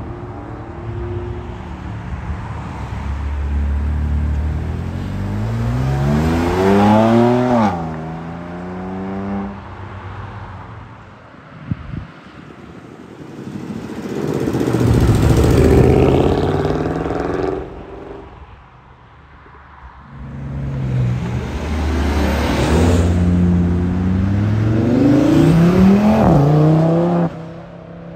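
Performance cars accelerating hard one after another. Each engine note climbs in pitch as it revs out, then falls at the gear change. The cars are a BMW M2, a Mercedes-Benz C63 AMG V8 and an Audi RS3 five-cylinder, with the loudest pass about midway.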